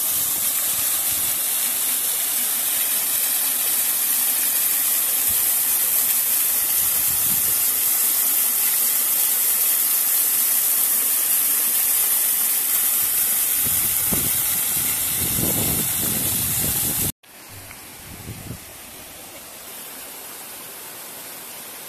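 Small waterfall splashing down a rock face close by: a steady rush of falling water. After a cut about 17 seconds in, the rush goes on quieter and more distant.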